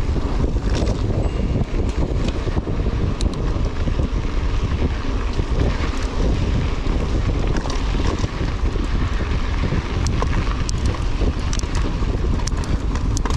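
Wind buffeting an action camera's microphone while riding a mountain bike, over a steady low rumble of tyres on the ground. Scattered sharp ticks and rattles come through it.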